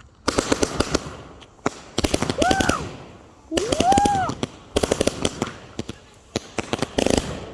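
Backyard fireworks going off in rapid volleys of sharp bangs and crackles. There are about six bursts, each lasting under a second, with short gaps between them.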